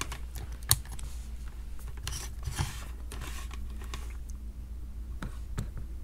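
Scattered small clicks and taps of multimeter test probes and their leads being handled and pressed against a power adapter's barrel plug, over a faint low steady hum.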